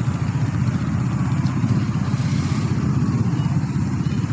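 Road traffic, mostly motorcycles with a few cars, running their engines steadily as they cross the railway tracks at a level crossing.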